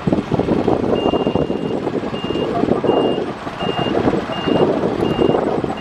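A heavy earth-moving machine's diesel engine runs under load while its reverse alarm starts beeping about a second in. The alarm gives one long tone, then short high beeps at about one and a third per second, warning that the machine is backing up.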